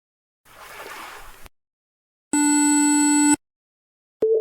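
AI-generated sound-effect clips played back one after another: about a second of soft rushing noise like surf, then, after a short gap, about a second of a steady buzzy electronic tone that cuts off sharply, and near the end a click followed by a warbling electronic tone. The tones are what a 'wave' prompt gave when taken as a waveform rather than sea waves.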